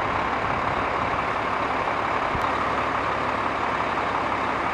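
Fire truck engine running steadily, a constant even rumble and hiss.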